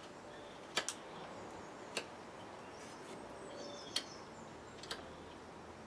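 Knife cutting small chips from the top of a birch handle, chamfering its edge: four short, sharp snicks of the blade through the wood, a second or two apart.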